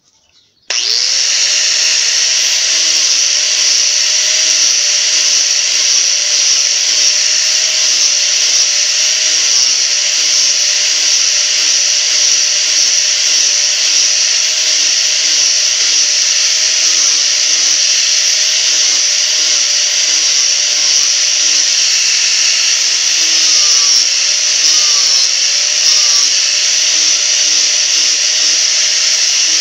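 Electric angle grinder switched on under a second in, spinning up to speed and then running steadily at full speed, with a grinding rasp as its disc carves and shapes a small block of wood.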